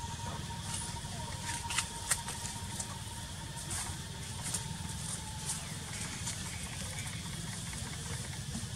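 Steady low rumble with scattered light clicks and ticks, like dry leaves and twigs brushing and snapping close by. A faint steady whine runs under it and fades out about halfway through.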